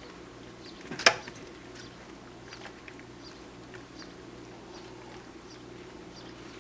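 Puppies moving about near their food: scattered light clicks and one sharp knock about a second in, over a steady low hum.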